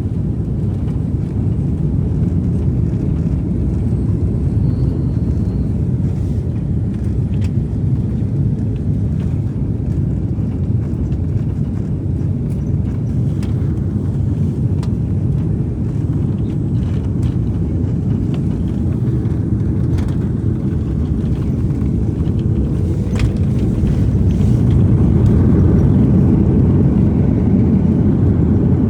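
Steady low rumble of airliner engines and airflow heard from inside the passenger cabin, swelling slightly near the end, with a few faint clicks.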